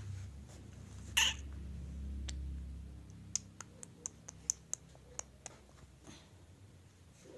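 A puppy gives one short, high yelp about a second in, followed a couple of seconds later by a run of sharp clicks.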